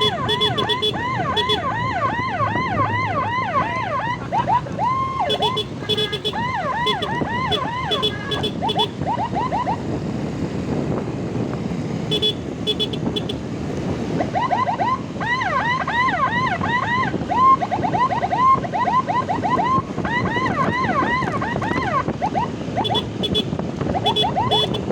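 Electronic emergency siren in a fast yelp, sweeping up and down about four times a second, over steady road and engine noise. It stops for a few seconds in the middle and then starts again.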